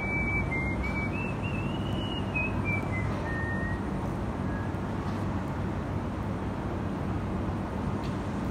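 Steady low outdoor rumble with a faint hum, typical of distant traffic or machinery. Over it, a thin whistle-like tone wanders up and down between a few notes for the first three or four seconds, then fades out.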